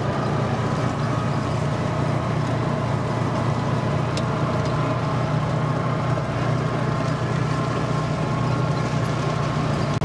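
Off-road buggy driving at a steady speed over a gravel track: an even engine drone with tyre noise, heard from inside the open cab.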